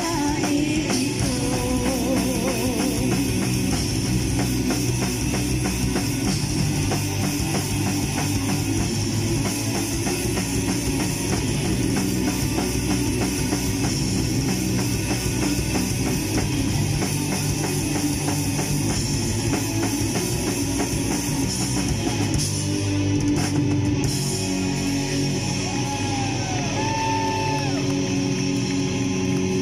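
Live heavy metal band playing loud: distorted electric guitars, bass guitar and a drum kit through the stage speakers, with a change in the pattern about three-quarters of the way through.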